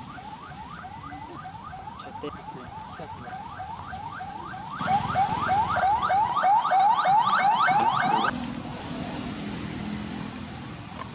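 Baby macaque crying in a rapid, even series of rising squeals, about four a second, much louder about five seconds in and stopping suddenly about eight seconds in.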